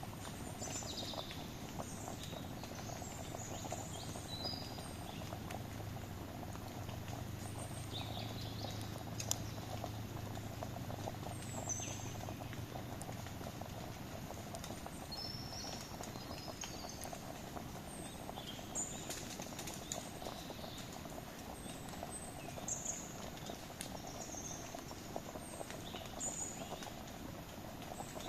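Campfire crackling with scattered sharp pops, while small birds chirp repeatedly.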